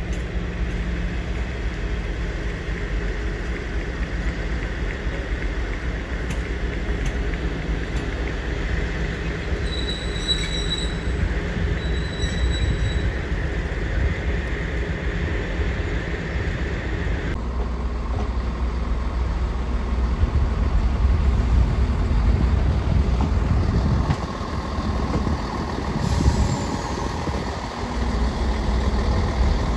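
BR Class 56 diesel-electric locomotive's 16-cylinder Ruston-Paxman engine running with a steady low throb. After a cut about seventeen seconds in, a Class 170 Turbostar diesel multiple unit's underfloor diesel engines run as the unit moves slowly along the platform.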